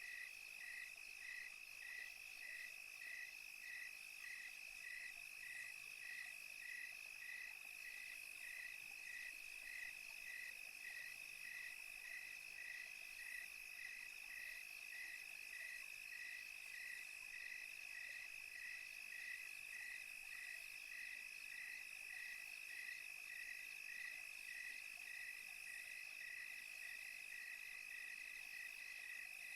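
Crickets chirping at night: a steady high trill with a second, regular chirp pulsing about one and a half times a second, over a faint hiss.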